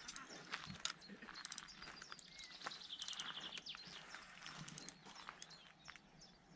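Faint outdoor ambience: a bird gives a short, fast trill of high repeated notes about three seconds in, among scattered small clicks and rustles.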